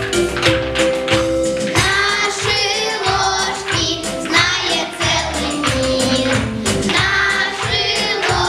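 A song playing: singing over an instrumental backing with a steady percussive beat, the voices coming in about two seconds in.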